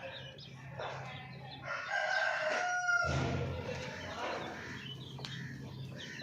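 A rooster crowing once, about two seconds in, with hens clucking around it.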